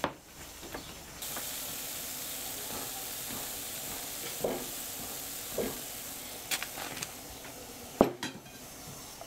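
Dough flat cakes frying in hot oil in a frying pan: a steady sizzle starts about a second in, with a few knocks from utensils and dishes. A loud knock near the end, after which the sizzle drops away.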